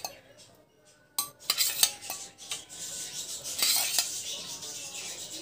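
A metal spoon clinking a few times against an aluminium kadai, over a soft steady hiss.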